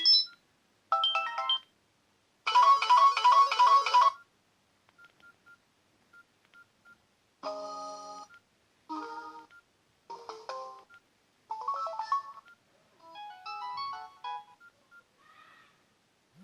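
Samsung C3350 mobile phone playing its preloaded ringtones through its small speaker: a string of short electronic melodies, each a second or so long with gaps between, the loudest a quick run of repeated notes early on. A few faint short beeps sound in a gap between them.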